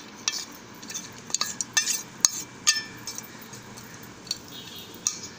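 Small pieces of fried coconut tipped from a steel dish into a steel bowl of batter: a scatter of clinks and taps of steel on steel, some ringing briefly, thinning out after about three seconds.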